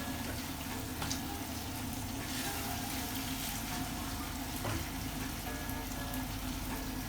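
Thick chicken tikka masala curry sizzling steadily in its pan in the final stage of cooking, with a couple of faint clicks.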